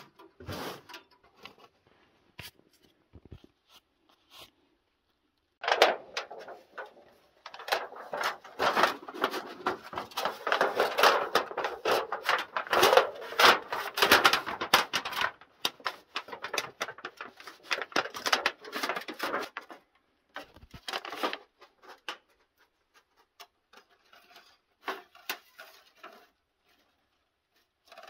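A thin metal wood-stove pipe being handled and rolled, making a dense run of clicks and rattles through the middle, with scattered knocks before and after.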